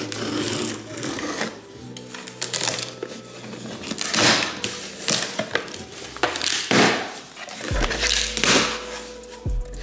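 A cardboard shipping box being opened: packing tape slit and torn and the cardboard flaps pulled open and rubbed, with several loud rips. Soft background music runs underneath.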